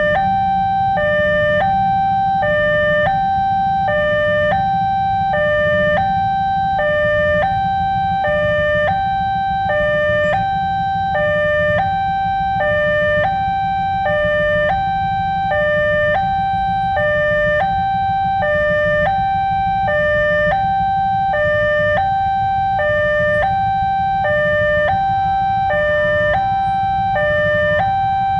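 Electronic two-tone siren styled after a Dutch railway-crossing signal, switching steadily between a higher and a lower tone, each held about a second, over a steady low rumble.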